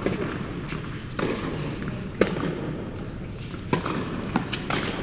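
Tennis balls being struck by rackets and bouncing on indoor hard courts: a string of sharp pops roughly a second apart, each ringing briefly in the hall, the loudest about two seconds in.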